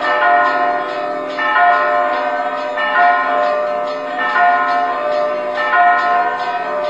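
Orthodox monastery church bells ringing a peal: several bells struck in a repeating sequence that comes round about every second and a half, each stroke ringing on into the next.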